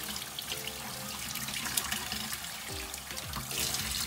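Kitchen tap running steadily, its stream splashing over a gutted fish and into a stainless-steel sink as the belly cavity is rinsed out by hand to wash away the liquid remains.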